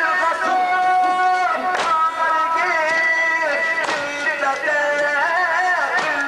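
A male eulogist chanting a Shia mourning elegy (latmiya) into a microphone, without instruments, in long held notes that waver and bend. Sharp slaps land about every two seconds, the rhythm of mourners' chest-beating.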